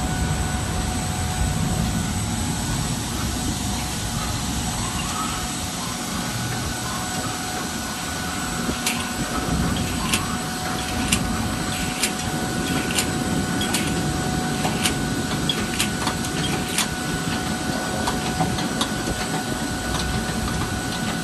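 Glass-bottle filling and aluminium screw-capping machine running with a steady mechanical hum and a thin high whine. From about nine seconds in, sharp clicks come roughly once a second.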